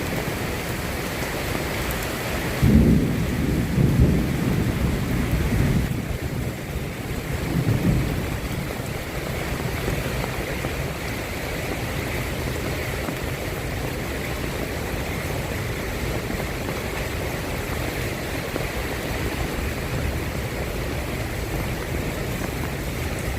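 Steady rain falling, with low rolls of distant thunder rumbling between about three and eight seconds in.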